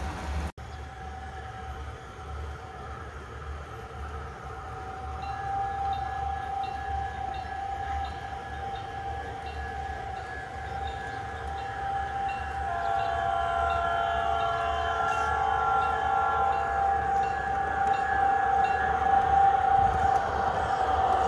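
Model diesel locomotives' onboard sound units running a steady engine tone, with a multi-tone horn sounding for about four seconds past the middle. The sound gets louder near the end as the train draws close.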